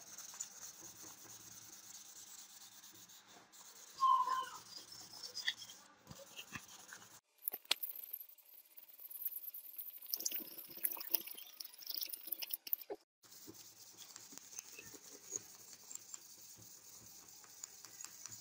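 Sandpaper rubbed by hand back and forth over a steel axe head, a faint scratchy rasping that comes and goes with the strokes, with a brief squeak about four seconds in.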